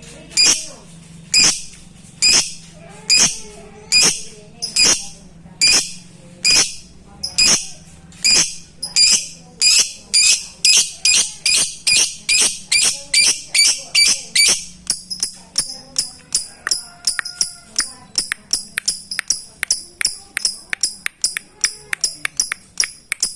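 Lovebird giving sharp, high, clipped calls, one about every second at first, then quickening to a rapid run of several a second about fifteen seconds in. This is the 'ngetik' rival-calling call that keepers play to provoke other lovebirds into calling and singing.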